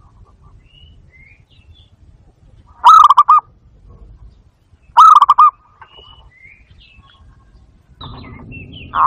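Barred dove (bato-bato) calling: two short bursts of rapid, quavering coos about two seconds apart, with faint high chirps of other small birds in between. Near the end a rush of noise comes in and a louder call begins.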